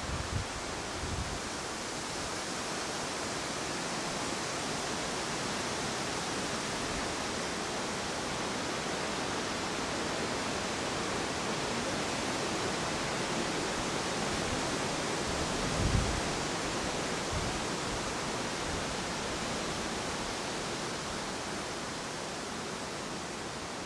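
Steady, even hiss of outdoor ambient noise with no distinct events, and a brief low thump about sixteen seconds in.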